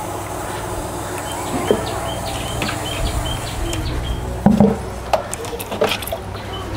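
A bird chirping, a short high note repeated about three times a second, over a steady low hum, with a few sharp knocks in the middle.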